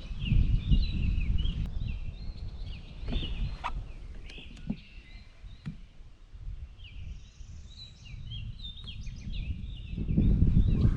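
Birds calling and chattering, many short high calls overlapping, over a low rumble that swells near the start and again near the end, with a few sharp clicks.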